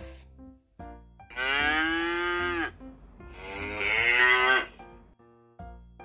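Cow mooing twice, two long calls of about a second and a half each.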